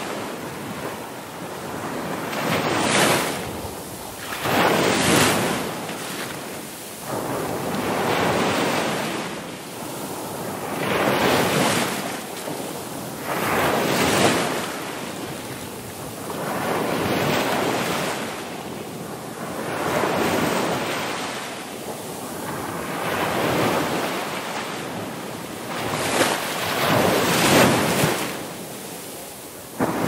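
Ocean surf: waves breaking and washing in one after another, each a swell of rushing water noise that rises and fades every two to three seconds.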